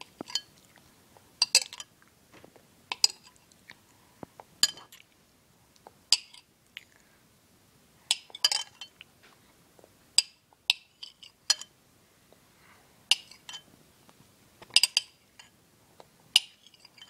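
Kitchenware clinking and knocking: about a dozen sharp, separate clinks, roughly one every second and a half.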